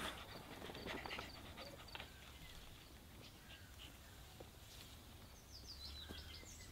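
Faint rustling and light ticks in the first two seconds, from animals moving in the garden greenery, then quiet outdoor ambience. Near the end comes a quick run of high bird chirps.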